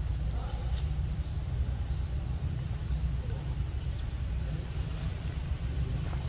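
Insects droning steadily in two high pitches, with a short rising chirp repeating about every two-thirds of a second through the first half, over a steady low rumble.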